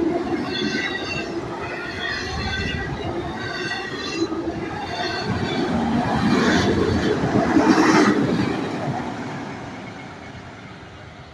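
Empty autorack freight train rolling past, its wheels rumbling on the rails with a repeating high-pitched ringing. It swells about two-thirds of the way through, then fades steadily as the last cars move off.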